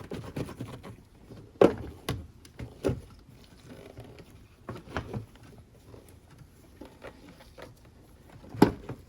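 Plastic air filter boxes being set into an engine bay and pressed into place: a few scattered knocks and clacks, the loudest near the end.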